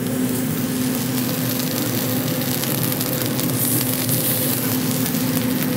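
Steady low machine hum of a restaurant kitchen cooking line, over polenta strips sizzling on a hot flat-top griddle as a metal spatula turns them.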